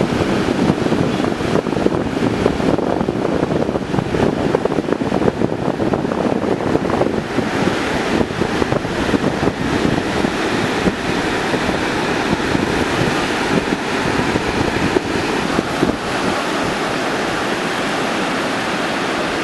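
Ocean surf breaking in a continuous rush, with wind buffeting the microphone; the hiss of the surf grows brighter about halfway through.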